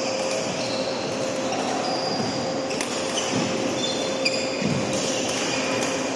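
Sports shoes squeaking in short high chirps on an indoor court floor during a singles rally, with a few sharp hits, a dull thud and a steady hum of the hall.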